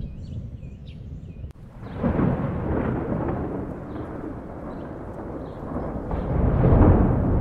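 Thunder: a deep rumble starts suddenly about two seconds in, eases off, then swells again to its loudest near the end.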